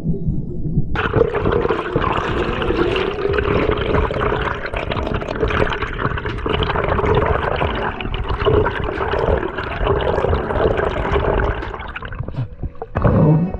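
Water rushing and bubbling over an underwater camera housing as the diver swims, with the sound changing as the camera breaks the surface near the end.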